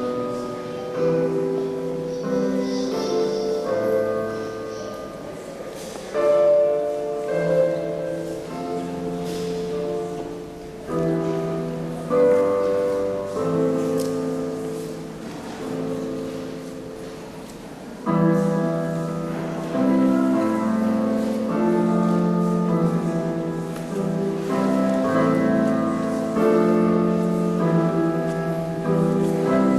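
Piano playing a slow piece, chords struck and left to ring and fade.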